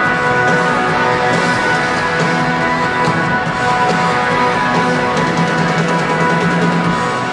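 Live rock band playing loudly, with heavily distorted electric guitars holding sustained chords over bass and drums.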